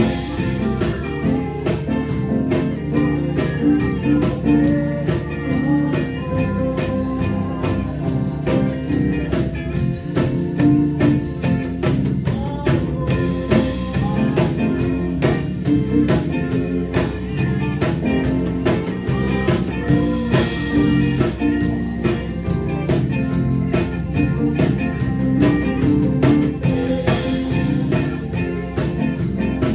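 Gospel music with a hand-held tambourine shaken and struck in a steady rhythm close to the microphone, over other instruments playing along.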